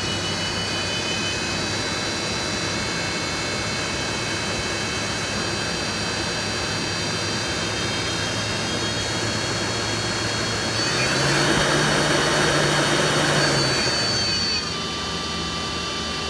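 A machine running steadily with a many-toned whine. About eleven seconds in it speeds up, rising in pitch and growing louder, then drops back down after about three and a half seconds.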